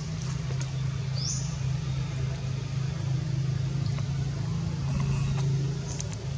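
A steady low motor hum, with two brief high rising chirps, about a second in and again near the end.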